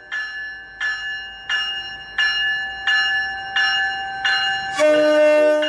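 An arriving MBTA commuter train's bell rings steadily, one strike about every 0.7 seconds. About five seconds in, a short, loud blast of the train's horn sounds over it.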